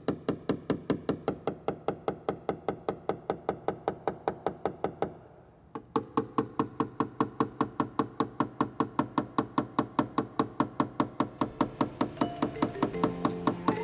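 Rapid, even taps of a paintless-dent-repair knockdown tool on a truck door panel, about five a second, knocking down the high crowns around a dent. The tapping pauses briefly about five seconds in, and background music comes in near the end.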